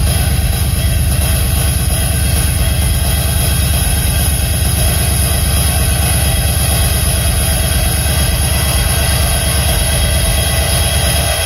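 Loud techno played over a festival sound system, in a stretch without a kick drum: a fast-pulsing bass rumble under a steady bright hiss.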